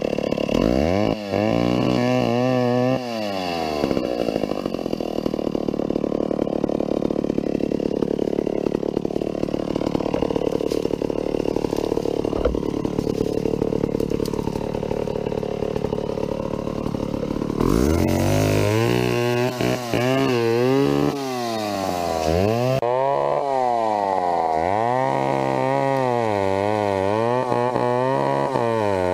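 Vintage McCulloch two-stroke chainsaw revved up and down a few times, then held at steady speed under load through a long cut into a big tree. About two-thirds of the way through it goes back to repeated rising and falling revs, a swell about every two seconds.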